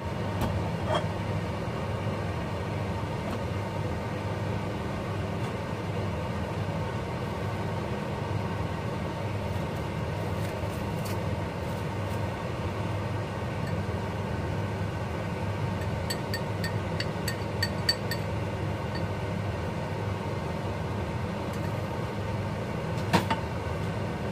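Steady low hum of a kitchen appliance running. A few faint light ticks come about two-thirds through, and one sharp knock near the end, as a ceramic bowl taps the pan while oil is poured.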